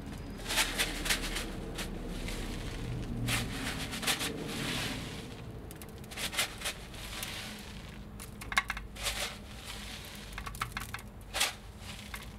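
Coarse rock salt (sal gruesa) shaken from a cardboard box and sprinkled by hand onto raw beef on a metal tray: irregular bursts of crackly grain clicks, several separate clusters, over a faint steady low hum.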